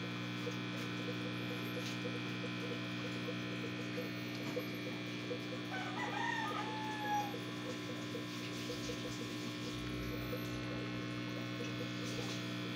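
Steady hum of aquarium equipment, most likely an air pump, with a faint, fast ticking. A bird calls briefly about six seconds in.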